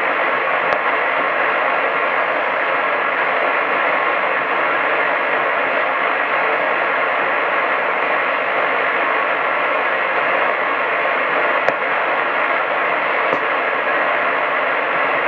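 Medium-wave AM radio reception giving a steady static hiss with no programme heard, cut off above about 4 kHz. A few faint clicks come through.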